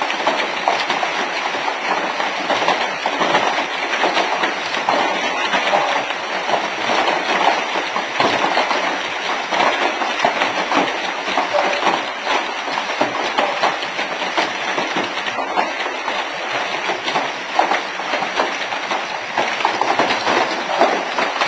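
Heavy hail: a dense, unbroken clatter of hailstones pelting a corrugated shed roof and a paved courtyard.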